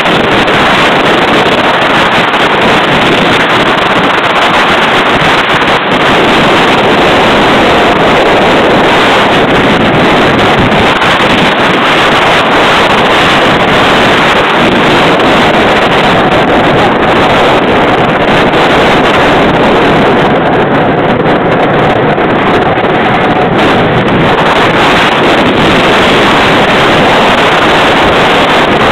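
Rebel Yell wooden roller coaster train running at speed along its wooden track, its steady rumble mixed with loud wind buffeting the microphone.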